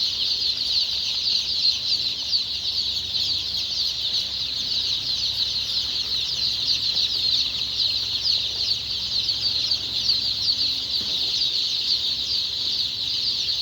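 A brood of day-old chicks peeping continuously, many short, high, falling cheeps overlapping into a dense chorus.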